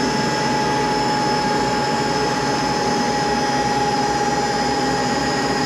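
Monarch 10EE lathe spindle and belt drive running steadily at high speed while warming up. It gives an even mechanical hum with a clear steady whine, running smooth.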